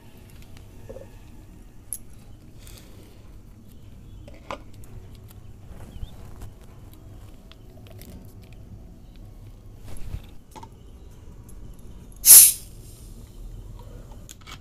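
Light clicks and taps of plastic bottles and ice-pop tube packets being handled. About twelve seconds in comes a short, sharp hiss as the cap of a 7Up bottle is twisted open and the carbonation escapes.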